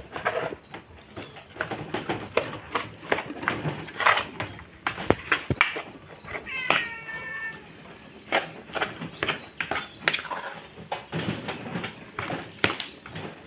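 Cats meowing several times, with one longer meow about six seconds in. Under it, a plastic spoon scrapes and knocks against an aluminium pot as rice is mixed.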